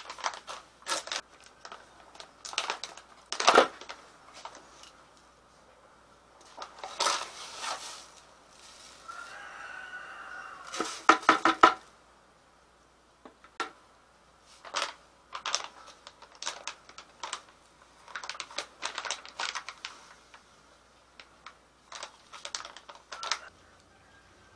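Paper packet of sanitizer crystals being torn open and crinkled, with scattered clicks and taps as the powder is measured into a plastic bucket.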